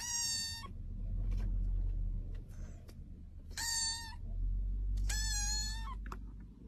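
A young kitten meowing three times in thin, high-pitched calls, the last one the longest, over a steady low rumble.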